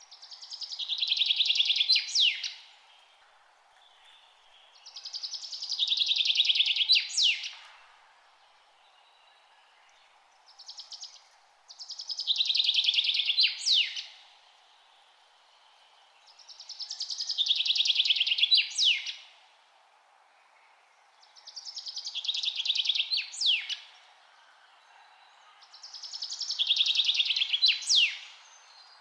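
A bird repeats the same rapid, buzzy trill six times, about every five seconds. Each phrase swells in loudness for about two seconds and ends in a couple of sharp notes. A faint steady hum lies underneath.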